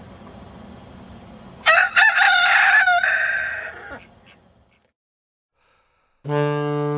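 A rooster crowing once, a single call of about two seconds with a brief break early in it, fading away.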